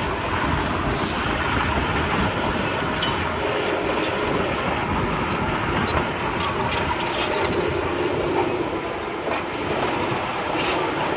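Komatsu D31P crawler bulldozer running steadily under load, its steel tracks clanking with scattered sharp clicks over the diesel engine.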